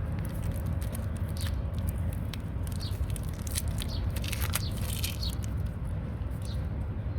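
Handling noise: scattered small clicks, taps and scrapes, busiest in the middle, over a steady low hum.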